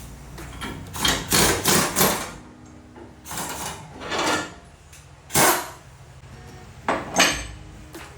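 Irregular hammer blows on car body sheet metal: a quick run of four strikes, then single blows, then a pair near the end.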